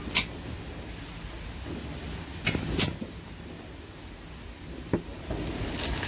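Fireworks going off nearby: four sharp bangs, the second and third close together, then a car drives past near the end.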